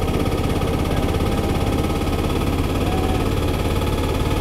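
Small engine of a three-wheeler auto rickshaw running steadily on the move, a rapid even buzzing throb heard from the passenger seat under the canopy.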